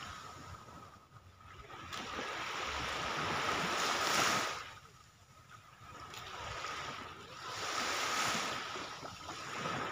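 Small waves breaking and washing up the shore in slow surges: the hiss swells to a peak about four seconds in, drops off, and builds again to a second peak about eight seconds in.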